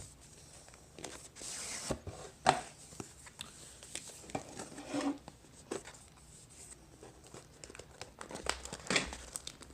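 Action camera packaging being opened by hand: plastic crinkling and tearing, with scattered clicks and taps as the box contents are handled, the loudest a sharp click about two and a half seconds in.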